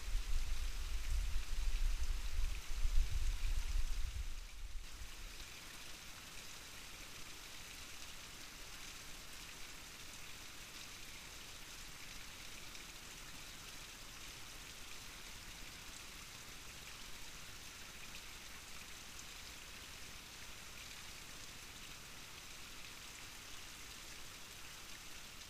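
Steady hiss throughout, with low rumbling in the first four or five seconds that then dies away.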